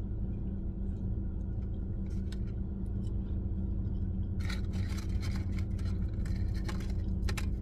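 Steady low hum of an idling car, heard from inside the cabin, under quiet eating sounds. About four and a half seconds in, and again near the end, there are short crackly bursts as the paper fry box is handled and fries are picked out.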